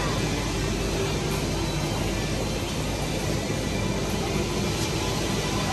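Steady supermarket background noise: a constant rumble and hiss with no pauses.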